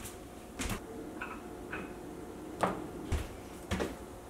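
A few separate soft knocks and thumps, about four, from a person on their feet moving beside a table, with two faint short squeaks about a second in.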